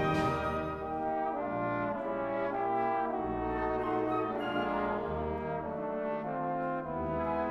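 Symphonic wind band playing a slow passage of held brass chords, with horns and trombones to the fore and the chords changing about every second over low bass notes. A louder full-band chord dies away in the first second.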